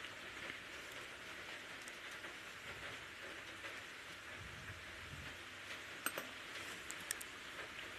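Faint steady hiss, with quiet handling of a bowl and plate as curry gravy is poured over a mound of rice. A few sharp clicks about two-thirds of the way through.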